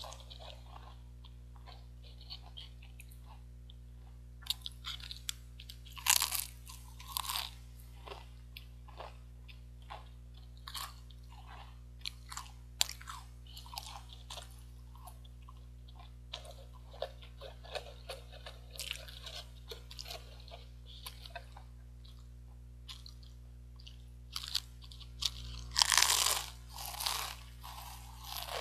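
Pringles potato crisps being bitten and chewed close to the microphone, in irregular bursts of crunching with short quiet gaps between; the loudest crunching comes near the end. A steady low electrical hum runs underneath.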